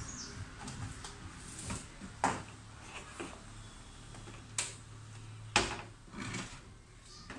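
Plastic rear cover of a 50-inch Riviera LED TV being lifted off and handled: a few sharp plastic knocks and clacks, the loudest about two, four and a half and five and a half seconds in.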